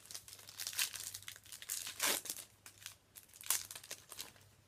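Foil wrapper of a Yu-Gi-Oh booster pack crinkling as it is handled and torn open, in crackly bursts that are loudest about two seconds in, with another burst about three and a half seconds in.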